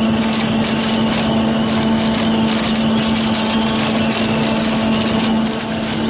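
Pik Rite 240 tomato harvester running: a steady engine hum at one constant pitch under a dense, rattling machinery noise.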